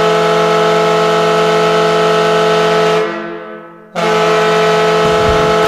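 Hockey goal horn sounding a loud, steady blast that dies away about three seconds in, then starts a second blast a second later. Near the end, a goal song's drum beat comes in underneath it.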